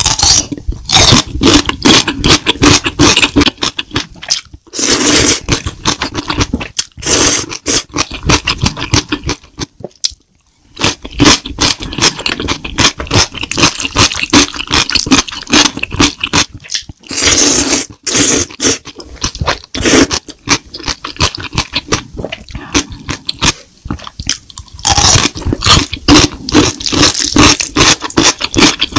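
Close-miked eating sounds of spicy stir-fried noodles: a long run of rapid wet smacking and chewing clicks, broken by several longer slurps as mouthfuls of noodles are drawn in. A brief silent gap comes about ten seconds in.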